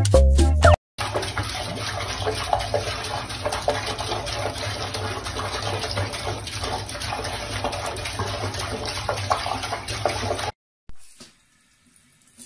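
Water running steadily from a tap into a sink while a cat paws at the stream; it cuts off suddenly near the end. The tail of a bouncy music track plays for the first second.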